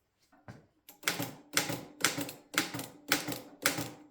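Mercedes Model 8 manual typewriter being typed on: a few faint clicks, then steady key strikes about two a second, each a sharp clack. The model is fully enclosed to damp its noise and runs a little quieter than the standard Mercedes Model 6.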